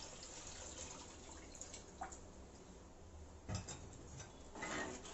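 Tamarind water pouring from a bowl into a clay pot of curry, thinning out into drips. Then come a few faint clicks and a knock about three and a half seconds in.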